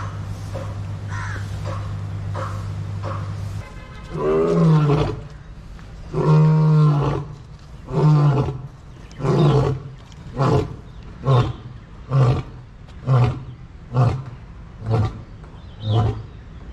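A big cat roaring in a bout: two long roars, then a run of about ten shorter roars that get briefer and come faster toward the end. A steady low hum runs underneath at first and stops about three and a half seconds in.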